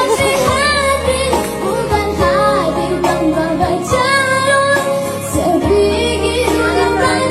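A young child singing a song with a wavering vibrato on held notes, over instrumental backing with a steady bass.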